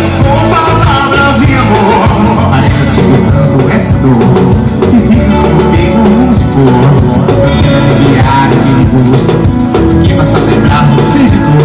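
Live band playing upbeat dance music with drum kit, guitar and percussion, a male singer's voice over it.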